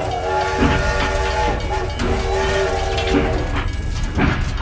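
Toy train's whistle sound effect: two long, steady whistle tones of about a second and a half each, the second starting about two seconds in, with a few light knocks.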